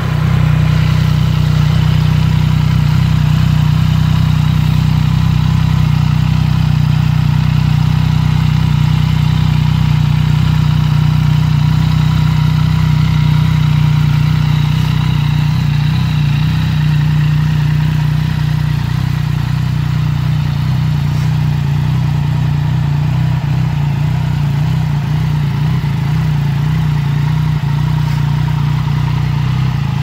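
Yamaha XSR900's inline three-cylinder engine idling steadily through an aftermarket exhaust.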